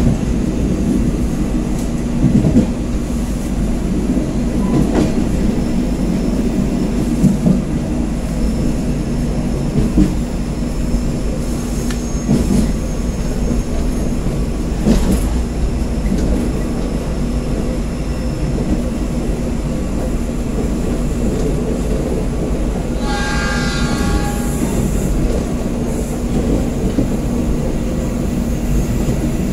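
KA Pangrango locomotive-hauled passenger train running on the rails, heard from its rear cab as a steady rumble of wheels on track with occasional clacks. About three-quarters of the way through, the locomotive's horn sounds once for about a second and a half.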